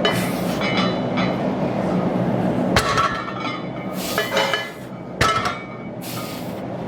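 Barbell and steel weight plates clanking: three sharp metallic clanks with a brief ring, over steady gym background noise.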